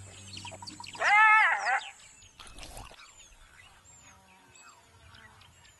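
A black-backed jackal gives one loud, arching yelp about a second in, the father jackal scolding a wild dog that has come close. Faint, high bird chirps follow.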